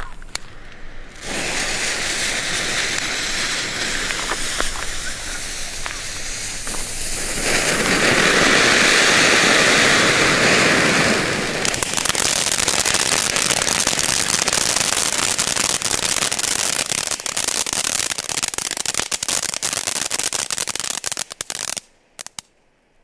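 Several small youth firework fountains hissing as they spray sparks. The hiss starts about a second in and grows louder around eight seconds in as more fountains burn. From about twelve seconds in it turns to a dense crackle, then stops suddenly near the end.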